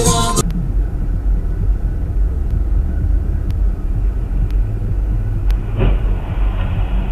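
Music cuts off about half a second in, leaving the steady low rumble of a car's engine and road noise inside the cabin, as picked up by a dashcam, with faint ticks about once a second. Near the end a higher-pitched steady sound comes in and holds.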